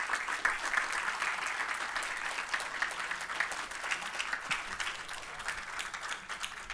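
Audience applauding at the end of a talk: dense clapping that thins out gradually toward the end.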